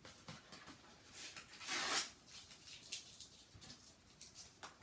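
A paper address label being picked at and peeled off a piece of cardboard: scattered small scratches and rustles, with one longer tearing rasp about two seconds in.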